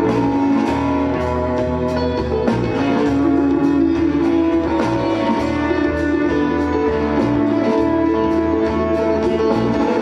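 Live band playing: plucked guitar and a bass line over a steady, even beat of percussion strikes.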